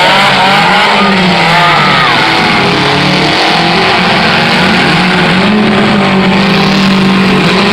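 Several demolition derby cars' engines running and revving hard at once, their pitch rising and falling as they push and ram.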